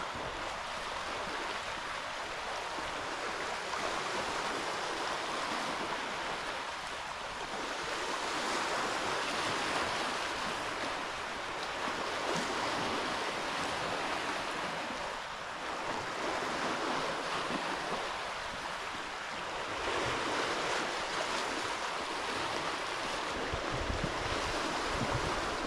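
Lake Ontario waves washing onto the shore, a steady rush that swells and eases every few seconds. Low wind rumble on the microphone comes in near the end.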